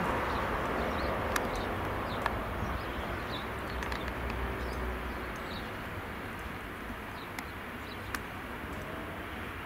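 Jubilee-class steam locomotive and coach rolling slowly away, a low rumble and steady noise fading gradually, with a few sharp clicks. Birds chirp faintly in the background.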